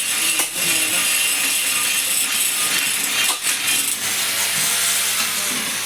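Paddy threshing machine running with a steady rasping, rattling noise.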